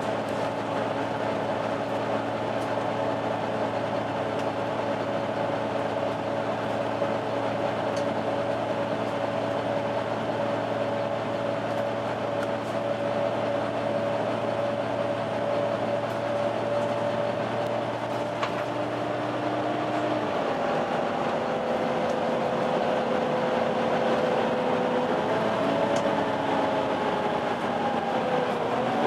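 Volvo B9TL bus engine and cooling fan running with a steady whine, the 'hoover' sound. About two-thirds of the way through, the low hum drops away and the whining tones shift and climb in pitch.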